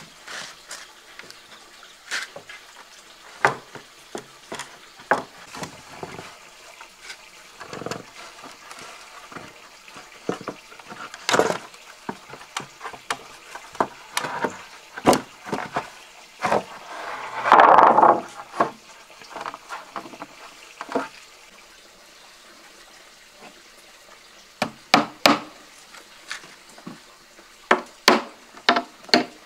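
Scattered knocks and taps of hand work on wood, with a louder scraping burst of about a second roughly two-thirds of the way in, then a quicker, more even run of taps near the end.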